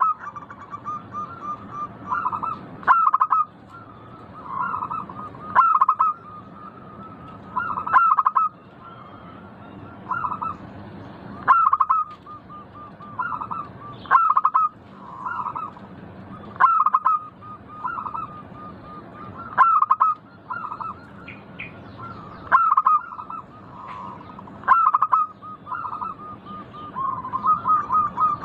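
Zebra dove (perkutut) singing: a repeated cooing song, with a loud phrase about every three seconds and quick runs of softer notes between them.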